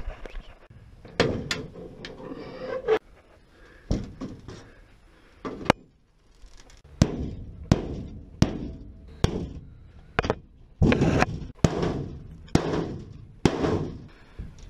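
Sheet-metal checker plate being bashed and wrenched off a truck's roof frame: a string of sharp, irregular metal bangs and clatters, some coming in quick pairs.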